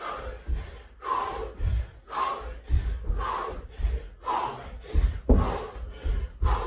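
Jump lunges on a carpeted floor: the feet thud down about twice a second, and each second or so comes a sharp, effortful exhale of hard breathing.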